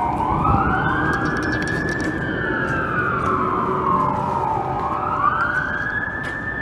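Boston fire department ladder truck's siren wailing, its pitch climbing quickly and then falling slowly, about once every five seconds, over a steady low rumble.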